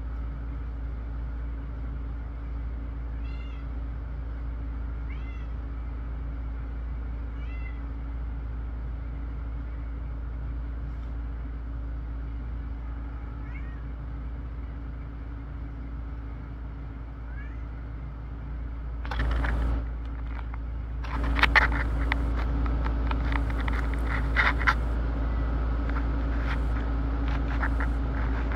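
A cat meowing in short, high calls: three a couple of seconds apart, then two fainter ones. About two-thirds of the way through come loud bursts of rustling and scraping noise. A steady low hum runs underneath.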